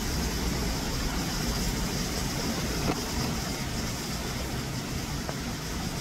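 Steady outdoor background noise: a low rumble under an even hiss, with no distinct event standing out.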